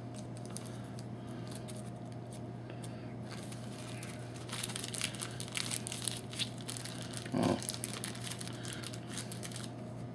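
Thin plastic bag crinkling and rustling as the tape holding paperwork to it is peeled off, with crackles strongest in the second half and one brief, louder low sound about three-quarters of the way through, over a steady low hum.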